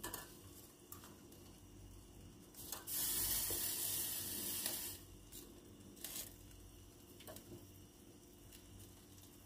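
Marinated chicken sizzling on an electric tabletop grill, swelling into a loud hiss for about two seconds in the middle. A few light clinks of a utensil against a bowl of marinade.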